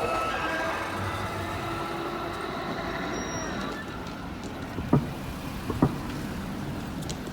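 A train running past on the line, its hum and rumble fading away over the first few seconds as it recedes, leaving a steady low rumble. Two sharp clicks come about five seconds in.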